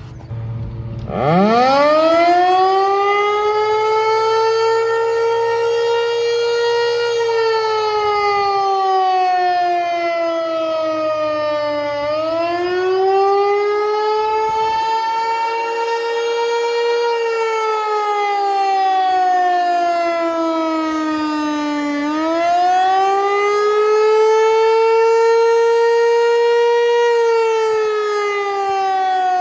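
Eclipse 8 tornado warning siren sounding a loud wail. About a second in its pitch sweeps sharply up, holds, then slowly falls, and climbs again about every ten seconds.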